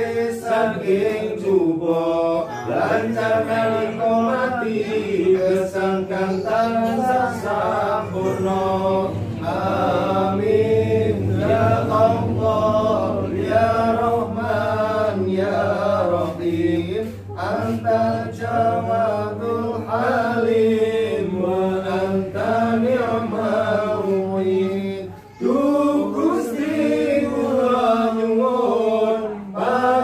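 A group of men chanting an Arabic Islamic prayer (doa) in a slow melodic recitation, with a brief break near the end.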